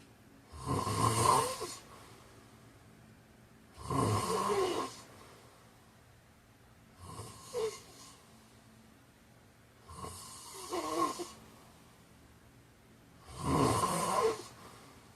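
A man snoring in his sleep: five snores about three seconds apart, each lasting about a second. The first, second and last snores are the loudest.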